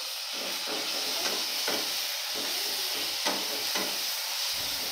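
Ginger-garlic paste and browned onions sizzling in hot oil in an aluminium kadai, with a metal spatula scraping against the pan several times as they are stirred.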